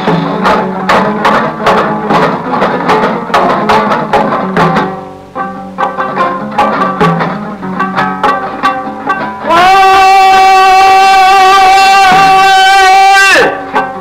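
Uzbek folk music: quick plucked-string playing over a steady low drone. About nine and a half seconds in, a long high note is held for some four seconds and slides down as it cuts off.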